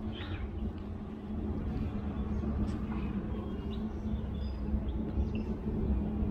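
Outdoor ambience: a steady low rumble with a constant hum, and scattered short bird chirps.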